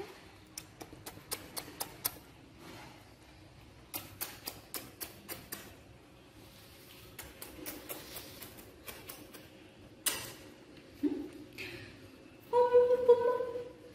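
Repeated light clicks in quick clusters, a person making kissing sounds to a baby monkey, then near the end a held cooing note about a second and a half long.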